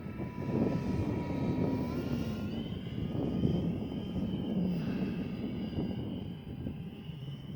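Electric ducted-fan whine from a Freewing F/A-18 radio-controlled jet, its pitch rising about two seconds in and then sliding down and up again as the throttle or the jet's distance changes. Heavy wind rumble on the microphone runs underneath.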